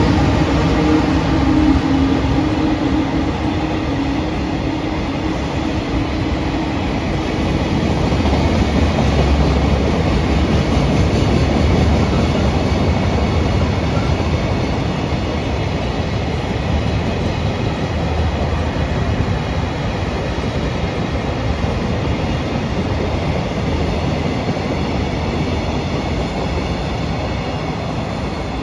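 A train running by: a long, steady rush of wheel and running noise, with a humming tone that fades out about seven seconds in.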